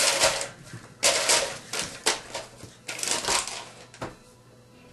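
Paper notes being rustled and handled in several short bursts, dying away about four seconds in.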